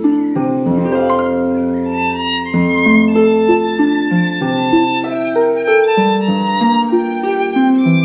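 Instrumental children's-song music: a violin plays the melody over a plucked-string accompaniment, the violin coming in about two seconds in.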